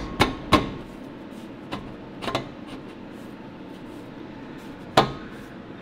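Steel exhaust pipe clinking and knocking against the exhaust pipes as it is pushed into place by hand: two sharp knocks at the start, a few lighter taps, and another sharp knock about five seconds in, over a steady background hum.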